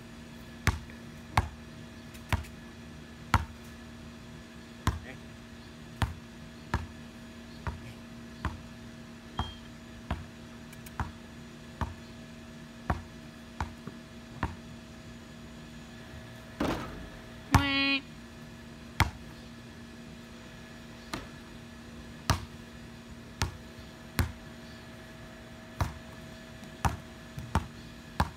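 Basketball bouncing on a concrete slab, dribbled in single bounces about a second apart, pausing for a couple of seconds past the middle. During the pause comes a brief pitched squeal, the loudest sound. A faint steady hum runs underneath.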